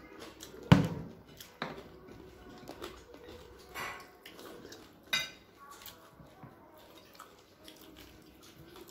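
Dishes clattering during a meal eaten by hand: a sharp knock of crockery under a second in, the loudest sound, then scattered lighter clicks and taps of fingers and food against the plates.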